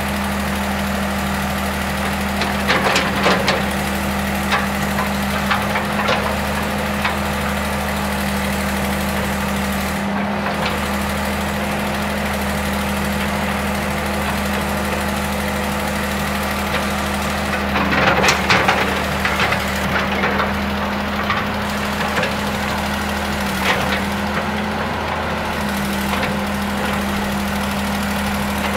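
John Deere 892E LC hydraulic excavator's diesel engine running steadily, with clusters of brief clattering knocks a few seconds in and a louder cluster about two-thirds of the way through as the machine works.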